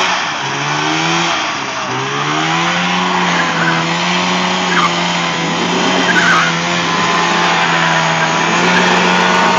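Polaris Indy 500 two-stroke snowmobile engine in a lawnmower held at high revs during a burnout, with tyre-spinning noise. The revs dip twice in the first two seconds, then hold steady.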